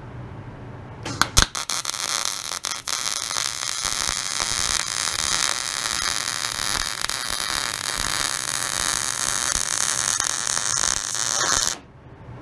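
Electric arc welding a bead on steel bed frame rails: a few short sputtering starts about a second in, then the arc runs as a steady crackling hiss for about nine seconds and cuts off suddenly near the end.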